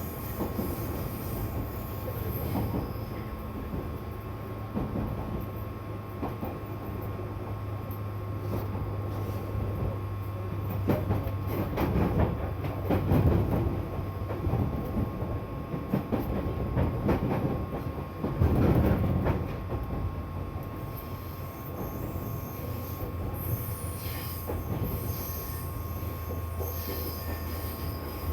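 Running sound heard inside a JR 205 series 1000 electric train car: a steady hum with rail and wheel noise. It swells louder twice, about halfway through and again about two-thirds through, with wheel squeal.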